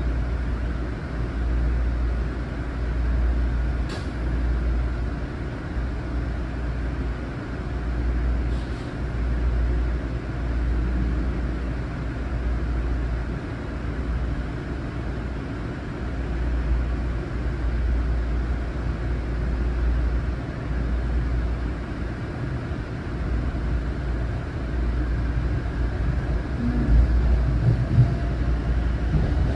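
Long Island Rail Road M9 electric train running along the line, heard on board: a steady rumble of wheels on rail with a low, pulsing drone and a couple of faint clicks.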